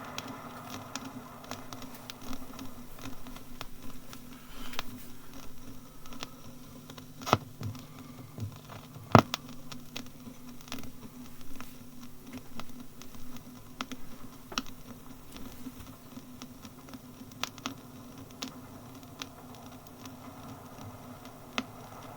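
Crackles and pops of gramophone-disc surface noise over a low steady hum, with one louder click about nine seconds in.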